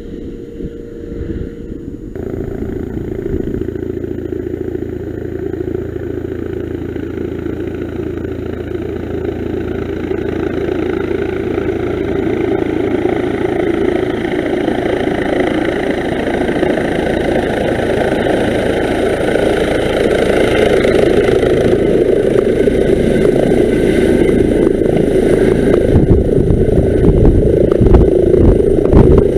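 Twin-engine police helicopter's turbines and rotor running, growing steadily louder as it comes in to a low hover over the helipad. The sound turns rougher and beating in the last few seconds as it gets close.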